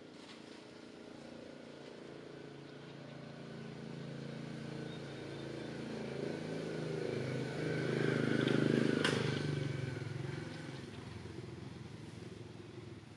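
A motor vehicle engine passing by: its hum grows steadily louder, peaks about two-thirds of the way through and then fades away, with a single brief click near its loudest point.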